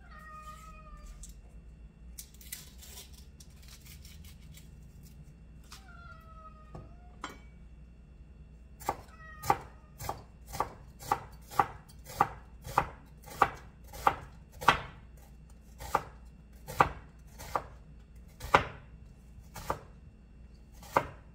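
Chef's knife chopping an onion on a wooden cutting board: a steady run of sharp knocks, about two a second, starting about nine seconds in. Before that, a brief rustle and two short pitched calls that fall slightly, one at the start and one about six seconds in.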